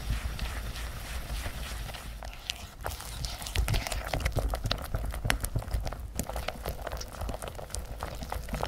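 Silicone whisk beating butter and powdered sugar in a glass bowl: rapid, irregular tapping and scraping of the wires against the glass as the mixture is creamed until pale.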